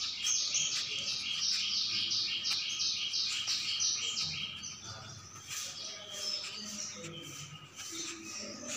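A bird chirping in a fast, even series of about four chirps a second, thinning out about halfway through.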